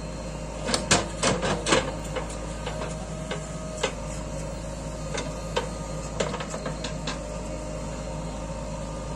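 JCB 3DX backhoe loader's diesel engine running steadily while its backhoe bucket digs into rocky soil. A quick run of sharp knocks and clatter comes about a second in, with single knocks scattered through the rest, as stones and clods strike the steel bucket.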